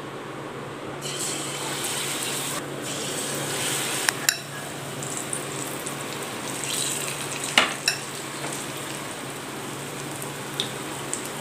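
Batter-coated green gram balls deep-frying in hot oil, a steady sizzle that starts about a second in as they go into the oil. Two quick pairs of sharp clicks stand out above the sizzle.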